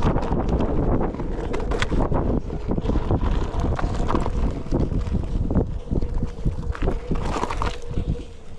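Onewheel electric board rolling fast over a gravel dirt trail: wind buffeting the microphone, loose stones ticking and crackling under the tyre, and a faint steady hum from the hub motor.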